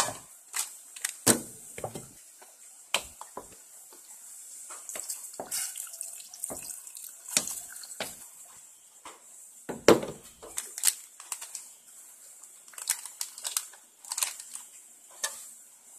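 Wasp larvae curry bubbling in a pot on the stove: irregular pops and crackles over a steady hiss. A couple of louder knocks come about a second in and again near ten seconds in.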